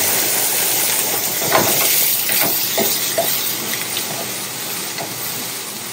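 Shredded vegetables stir-frying on a high gas flame in a nonstick frying pan: a steady sizzle, with a wooden spatula stirring and knocking against the pan now and then.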